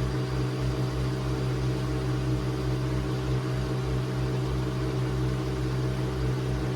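Nespresso Vertuo Pop+ coffee machine brewing: a steady mechanical hum of its motor and pump, even throughout.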